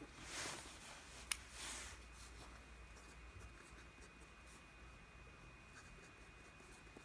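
Faint rubbing or scratching, twice in the first two seconds with a sharp click between them, then faint scattered ticks over quiet room tone with a thin steady high whine.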